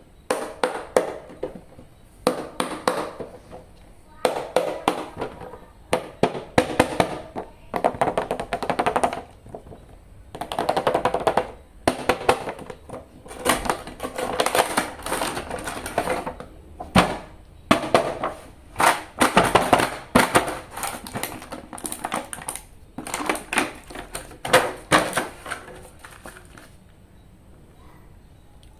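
Plastic toy packaging being handled and unwrapped: repeated bursts of crinkling, clicking and tapping, which stop a little before the end.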